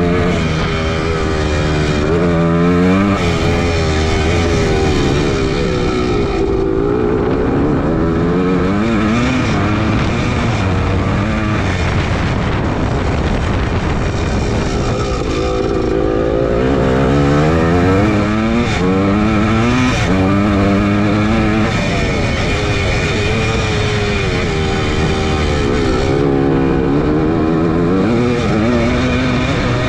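A 1981 Suzuki PE250's two-stroke single-cylinder engine, heard from on the bike as it is ridden. The engine revs rise in pitch several times through the gears and fall back at each shift or roll-off.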